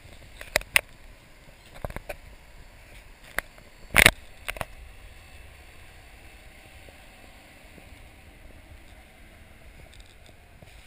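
A few scattered short knocks and clicks, the loudest a quick cluster about four seconds in, over a low steady outdoor hiss.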